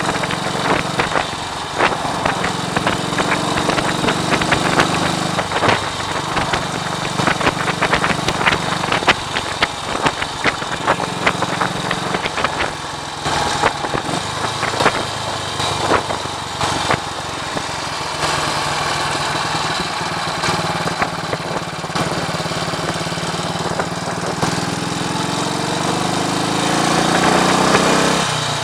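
1939 AJS Model 22 250 cc single-cylinder motorcycle engine running on a road ride, with wind buffeting the microphone in sharp irregular crackles. Near the end the engine note rises as it accelerates.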